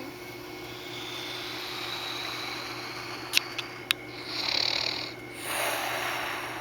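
A sleeping man snoring with loud, noisy breaths through congested sinuses, which the uploader blames for his nightly snoring. Three sharp clicks come a little past halfway, followed by two loud rasping breaths.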